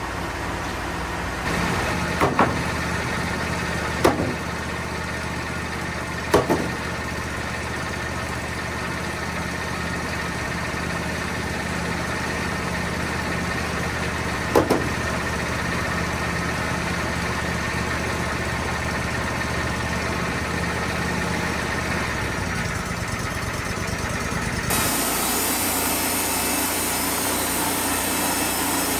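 Wood-Mizer portable sawmill running steadily, with a few sharp knocks in the first fifteen seconds. About 25 s in, the sound changes suddenly to a louder, hissing whine.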